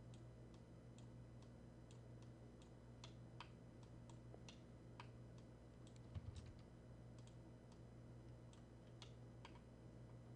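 Faint, irregular clicks of a computer mouse and keyboard over a low steady hum, with a soft low thump about six seconds in.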